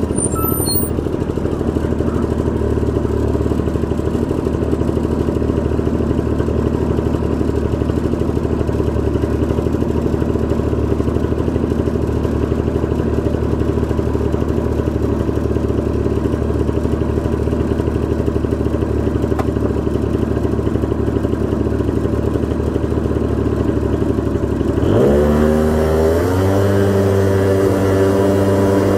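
Honda Gyro X (TD01) 49 cc two-stroke single-cylinder engine idling steadily, then about four seconds before the end the throttle opens and the revs climb quickly and level off higher as the trike pulls away from a stop.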